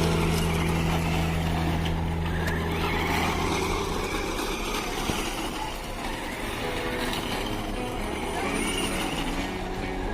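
Engine sound for a Ferrari F430 GT car model: a steady low drone that stops about three and a half seconds in, followed by a rougher, noisier rumble.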